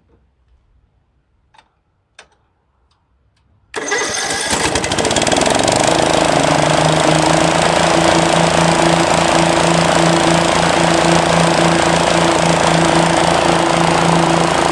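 Walk-behind lawn mower's engine, with its blades engaged, comes in abruptly about four seconds in after a few faint clicks, then runs steadily and loudly at an even pitch.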